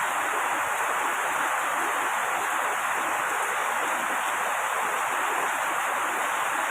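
Steady rain, an even rushing hiss of water without let-up or distinct single drops.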